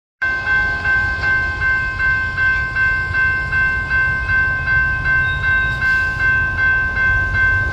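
Railroad grade-crossing warning bell ringing in a steady rhythm of about two and a half strokes a second, the signal that a train is approaching, over a low rumble.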